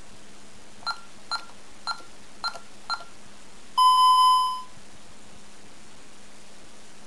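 Burglar alarm keypad beeping: five short key-press beeps over about two seconds, then one longer, louder beep about a second later.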